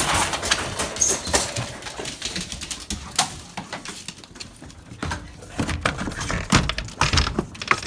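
Dogs rushing out through a small kennel door: a run of irregular knocks and clattering, heavier thumps about five to seven seconds in.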